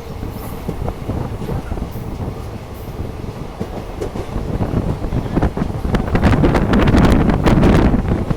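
Indian Railways train running on the track: a steady rumble with wheel clatter on the rails. It grows louder from about five seconds in, with a dense run of rattling clacks around six to eight seconds.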